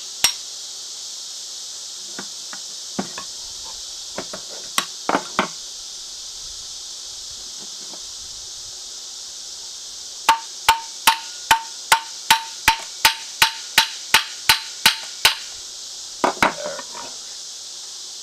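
Hammer striking a ceiling fan motor: a few scattered knocks, then a steady run of about a dozen and a half blows, two or three a second, each with a short metallic ring, to knock a part loose. Katydids buzz steadily in the background.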